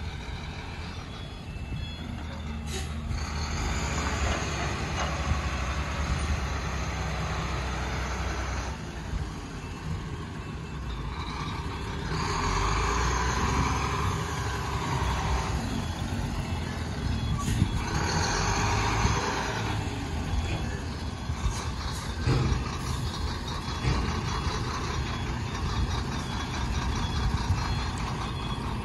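Heavy diesel engines of a FAW 340 hp tipper truck and a Shantui SE340 excavator running throughout. Two louder stretches of higher mechanical noise come in the middle, and a few sharp knocks stand out.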